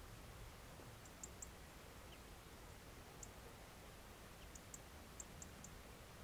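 Near silence: faint steady background noise with scattered faint, very high-pitched ticks, a few about a second in and a cluster of several toward the end.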